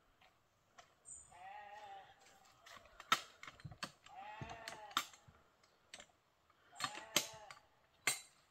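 Sheep bleating three times, each a wavering baa under a second long, with sharp clicks and knocks between the calls.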